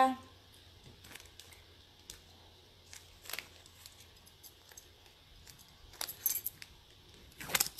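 Small metallic clinks and taps of gold jewelry being handled, pendant and chain knocking together. There are a few faint scattered clicks, a cluster about six seconds in and a louder one near the end.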